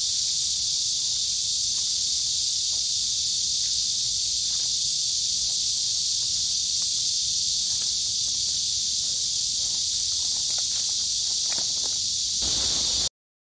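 Steady, loud high-pitched drone of cicadas in the trees, with faint scattered ticks beneath it; it cuts off suddenly near the end.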